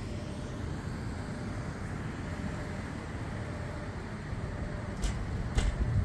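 Open-air rooftop ambience: a steady low rumble of wind and distant town traffic. Two short knocks come near the end.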